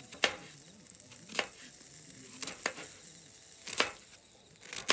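A knife slicing through a peeled onion and knocking on a wooden cutting board, one sharp cut a little more than once a second.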